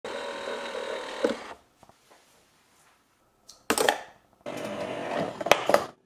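A small motorised machine running in two steady whirring stretches of about a second and a half each, with sharp clicks and a short clattering burst between them, then stopping.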